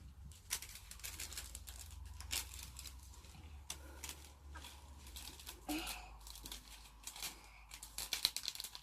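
Packaging crinkling and tearing in short, irregular rustles as small toy pieces are unwrapped.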